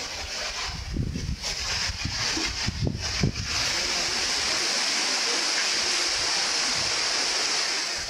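Strong gusting wind rushing through the trees' leaves, with wind buffeting the microphone in low rumbles during the first few seconds. About three and a half seconds in, it settles into a steady, loud rush that holds until near the end.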